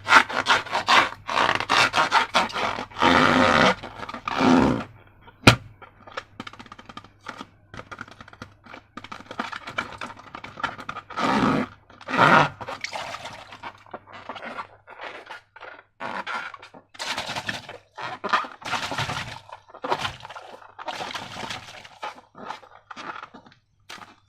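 Slime being squeezed and worked by hand: a run of irregular sticky squelches and scrapes, with one sharp snap about five seconds in.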